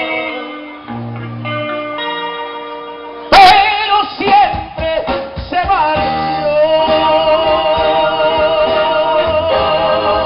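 Small band playing: sustained keyboard chords over a bass line. About three seconds in, a loud melody with a wavering vibrato comes in and carries on.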